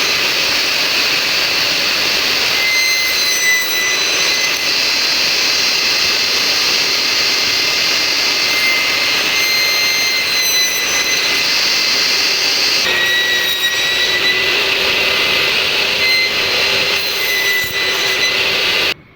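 A high-speed woodworking power tool running with a steady, loud, high-pitched whine. Its pitch shifts slightly a few times as it takes load, and the sound cuts off abruptly near the end.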